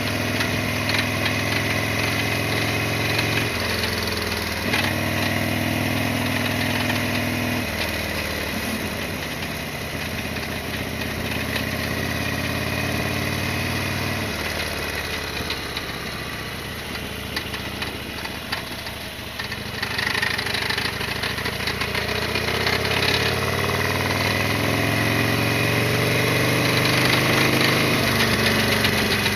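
Harley-Davidson Sportster XL1200R's air-cooled 1200 cc V-twin running under way. It steps through gear changes in the first several seconds, drops off as the bike slows through the middle, then pulls up in pitch again as it accelerates near the end.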